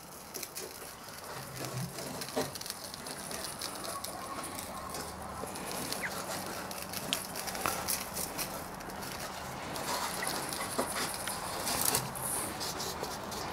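Coarse salt and sugar cure mix pattering as it is sprinkled from a stainless steel bowl onto a salmon fillet in a stainless steel pan: a steady hiss of many small ticks.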